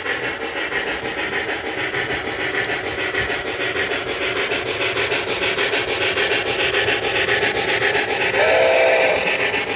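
Steam locomotive running steadily, a continuous rushing chuff. Near the end comes one short blast of a chime whistle, several notes sounding together for under a second.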